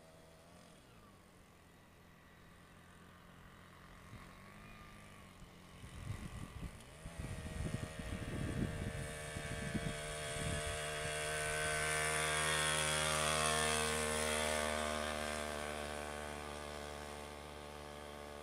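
Historic motorcycle engine approaching up a hill, passing loudest about two thirds of the way through, then fading into the distance. Low rumbling buffets on the microphone come as it approaches.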